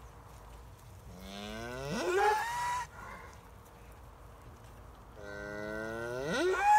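Cow mooing twice, each call starting low and rising sharply in pitch before breaking off.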